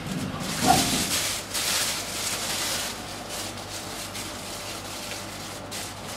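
Noise of a Nippori-Toneri Liner 300-series rubber-tyred automated guideway train. A loud hissing rush starts about half a second in and lasts a second or two, then settles to a fainter hiss over a steady low hum.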